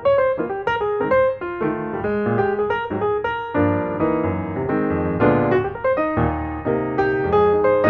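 Background piano music: a flowing run of notes over chords.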